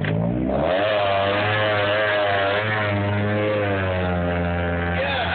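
Tracker SUV's engine revving up about half a second in, then held at high revs with a slight waver while the truck works through a deep mud hole.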